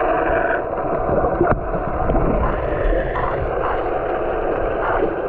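Muffled, steady rushing and sloshing of water heard through a submerged camera, with a few faint knocks and no clear pitch.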